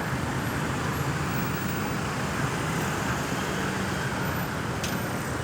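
Steady road traffic noise: running vehicle engines and tyre noise from a busy road.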